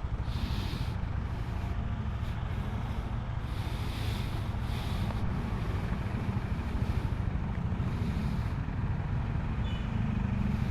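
Motor scooter engine running steadily while riding, a continuous low rumble with brief gusts of hiss now and then.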